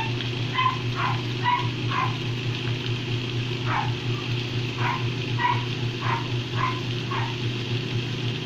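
A voice making about a dozen short, high yips in an imitation of a fox, spaced unevenly, over a steady low hum.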